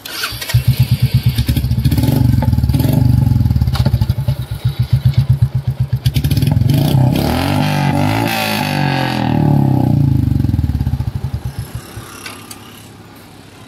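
Royal Enfield Classic 350's single-cylinder engine, fitted with an aftermarket short silencer, starting and running with a loud thumping exhaust beat. About halfway through it is revved up and back down, and near the end the beat slows and the engine stops.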